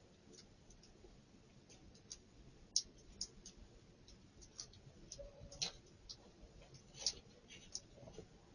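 Faint, irregular clicks and ticks, a few a second at most, over a low background hiss.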